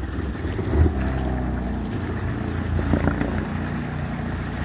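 Stand-up jet ski engine running, throttled up about a second in as the craft moves off through the water.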